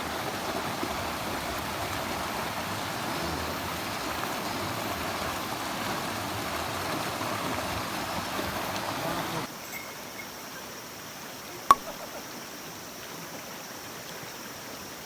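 Mountain stream rushing over rocks. About nine and a half seconds in it cuts abruptly to a quieter flow, and a single sharp click comes a couple of seconds later.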